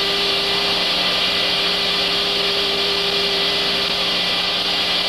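Steady drone of a C-130 Hercules in flight heard over the crew intercom: a constant hiss with an even, unchanging hum underneath.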